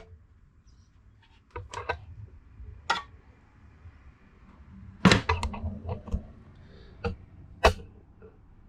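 Scattered plastic clicks and knocks as the clip-on plastic fan cover of a desktop PC is unclipped and lifted off. There are about eight sharp clicks, the loudest about five seconds in.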